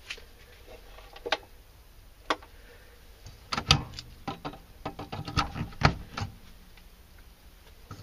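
Plastic plug-in outlet tester being pulled out of a wall receptacle and handled against the cover plate. A few scattered clicks, then a flurry of clicks and knocks in the middle.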